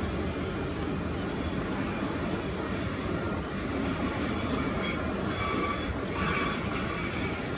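Freight train of loaded log wagons rolling past with a steady rumble of wheels on rail. Thin, high wheel squeals come and go over it.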